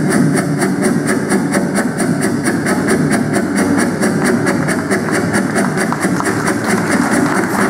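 A running engine imitated by voice into a microphone and amplified over a PA, a steady, even chugging pulse at about seven beats a second.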